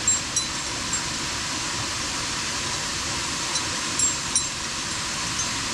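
Steady rushing of a waterfall, with a few short sharp clicks near the start and twice about four seconds in.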